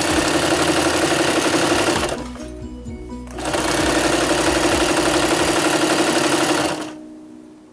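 Singer Prelude electric sewing machine stitching a zigzag seam at an even speed, in two runs of about two and three seconds with a short pause between; it stops about seven seconds in.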